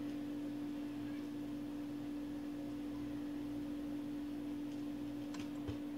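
Dual 1009 SK2 idler-drive turntable with the music over and its stylus riding the record's lead-out groove toward the auto-return trip, leaving only a steady low hum, with a few faint ticks near the end.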